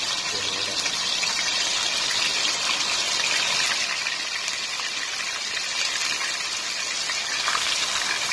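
Marinated minced meat (keema) sizzling in hot oil in a karahi: a steady, loud frying hiss, stirred with a spoon near the end.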